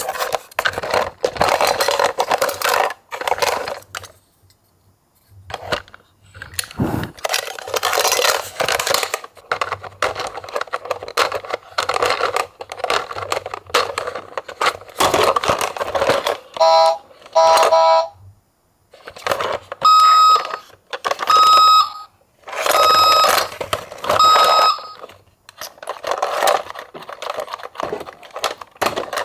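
Small die-cast toy cars clattering and rattling as they roll and jostle down a slope. Past the middle comes a short two-tone electronic siren, then several steady electronic beeps.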